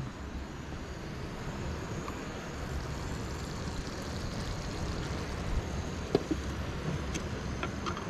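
Steady low rumble of wind on the microphone, with a few light clinks near the end as the clay tajine lid is set on its base.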